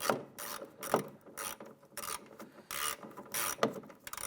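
Ratchet wrench worked back and forth in short strokes, each stroke a quick burst of clicks, running a nut down onto a short bolt.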